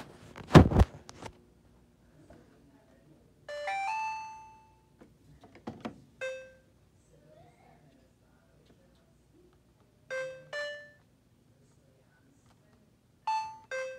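A loud thump just after the start, then electronic chimes from a Maytag washer's control panel as its buttons are pressed. First comes a short rising jingle of several notes about three and a half seconds in, then a single beep, and later two pairs of quick beeps as settings are selected.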